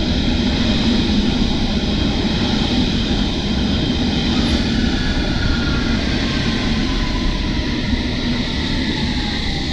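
London Underground S8 Stock train rolling into the platform with a steady rumble, braking to a stop. From about halfway through, several whining tones fall in pitch as it slows.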